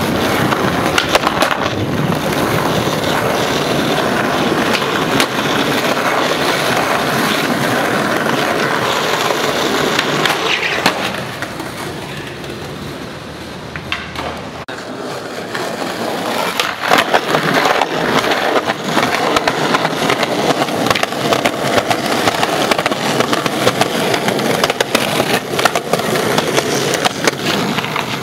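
Skateboard wheels rolling over concrete pavement, with many sharp clacks of the board striking the ground. The rolling drops to a lower level for a few seconds near the middle, then picks up again.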